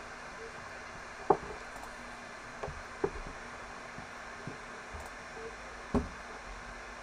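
Five short, sharp knocks or taps at irregular intervals over a faint steady hiss; the first, about a second in, and the last, near the end, are the loudest.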